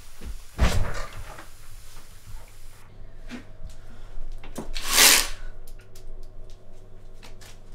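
Venetian blind pulled up with a brief rattling swish about five seconds in, followed by light clicks. A short thump comes about a second in.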